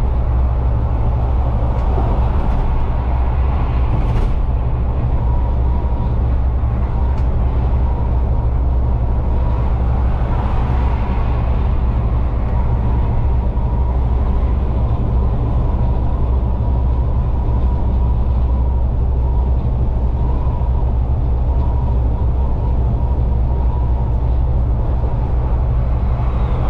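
Scania N250UD double-decker bus cruising at steady speed, heard from inside the driver's cab: a steady low drone from its five-cylinder diesel, with tyre and road noise and a faint steady whine.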